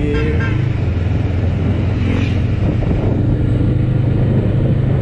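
Bristol Veloce 500 motorcycle engine running steadily under the rider at city cruising speed, a constant low drone.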